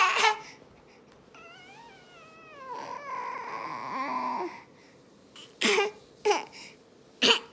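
Toddler crying: a loud wail at the start, then a long wavering whine, then three short sobbing bursts near the end.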